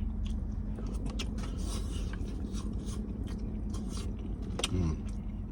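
Close-miked chewing and mouth sounds of a man eating rice and peas, with many small irregular clicks and light scrapes of utensil and container, over a steady low hum.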